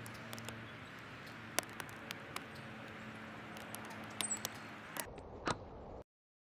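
Steady outdoor background hiss with scattered sharp clicks and taps. It shifts at about five seconds in, then cuts off to dead silence about a second later.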